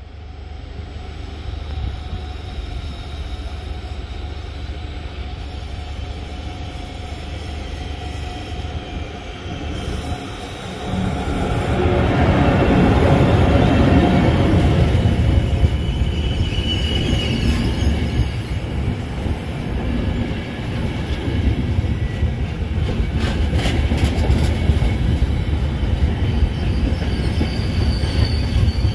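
Trenitalia Intercity passenger train running along the station track, its rumble swelling sharply as the train draws alongside about eleven seconds in. A brief high wheel squeal comes a few seconds later, then sharp clicks of wheels over rail joints.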